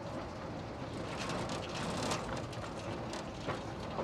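Open-top rail trolley running along the track: a steady rumble with rattling clicks and clatter from the wheels and car body on the rails.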